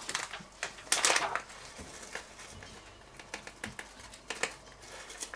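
Plastic bag of dried thyme crinkling as it is handled, a loud crackle about a second in, then light scattered rustles and clicks.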